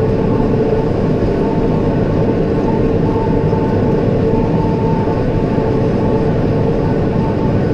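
Tractor and New Holland round baler running steadily in the hay field: a continuous engine and machinery drone with a steady higher tone held over it.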